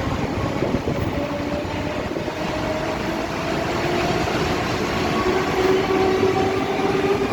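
Howrah–New Delhi Rajdhani Express train running by: a steady, even rumble of wheels and coaches on the rails, with faint drawn-out tones over it.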